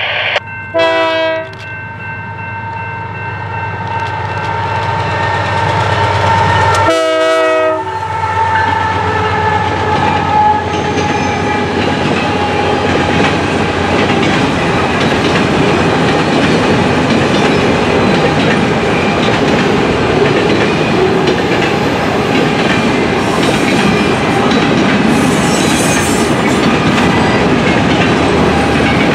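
Canadian Pacific GE AC4400CW diesel locomotive sounding two short horn blasts, one about a second in and one about seven seconds in, as it passes close by working hard. It is followed by a train of empty covered grain hopper cars rolling past with steady wheel clickety-clack on the rail joints.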